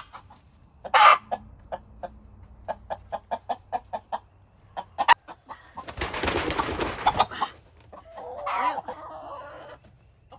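Chickens clucking in a run of short, quick clucks, with a louder squawk about a second in and a loud rustling burst lasting about a second and a half around six seconds in.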